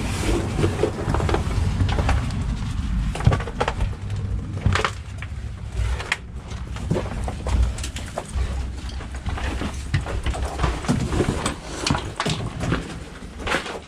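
Footsteps going down stairs: a run of irregular knocks and thumps over a low rumble.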